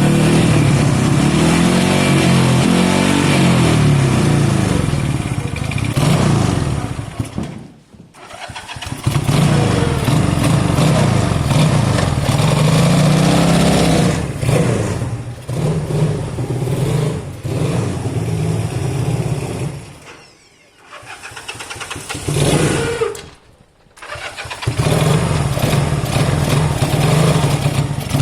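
Motorcycle engine running and being revved, its sound dropping away almost to nothing about eight seconds in and twice more later before picking back up. The mechanic takes the running as a sign the carburettor needs a good clean.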